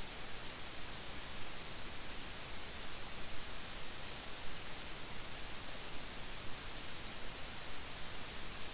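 Steady hiss of recording noise, even and unchanging, with no other sound on top of it.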